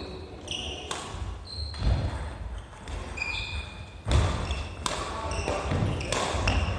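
Badminton singles rally: sharp racket strikes on the shuttlecock several times, with court shoes squeaking and thudding on the wooden gym floor between hits.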